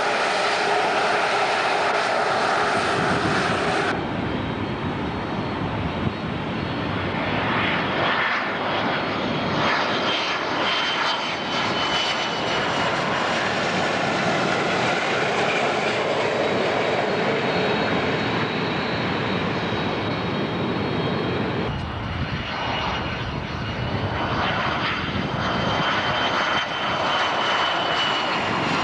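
Jet airliner engines in three clips cut one after another. First an airliner taxiing, then, after an abrupt change about four seconds in, low-flying jets on approach. Their steady rush of engine noise carries a high whine that drifts slightly lower as each plane passes.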